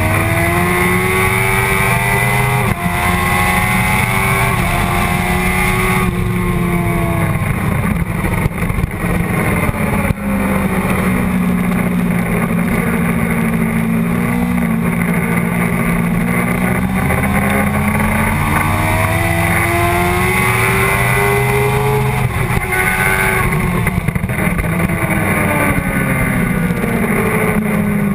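Sportbike engine at race pace, heard from the bike itself: the pitch climbs through the first few seconds with brief dips at the gear changes, holds steadier through the middle, then climbs again and falls off near the end, over a constant rush of wind.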